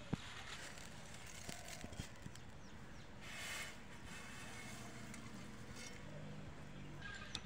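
Dry atta noodles tipped from a steel plate into a hot kadai on a wood fire: a short hiss about three and a half seconds in, over a faint steady background, with a light click at the very start.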